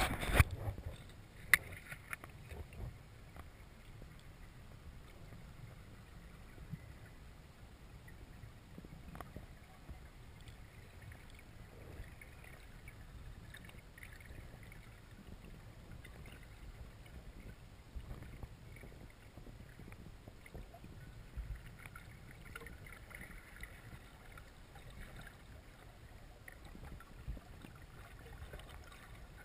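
Muffled underwater ambience heard through a waterproof action-camera housing: a low rumble with scattered faint clicks and taps, and a couple of sharper knocks in the first two seconds.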